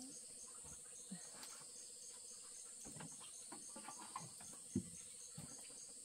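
Faint, steady high-pitched insect chirping: a continuous trill with a regular pulse about four or five times a second. Scattered soft knocks and taps sound over it, one a little louder about three quarters of the way through.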